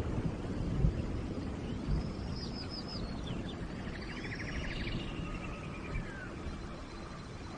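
Forest birds calling over a steady low rushing of rain. There are quick series of high arching chirps about two and four seconds in, and a buzzy trill in the middle.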